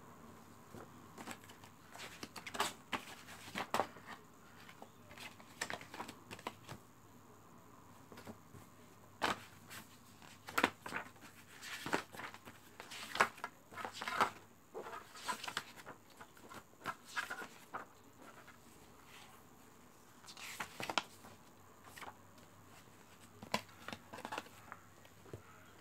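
Handling noise from a plastic DVD case and its paper inserts: irregular rustling of leaflets and small clicks and knocks as the case and papers are moved, with a few louder rustles in the middle and near the end.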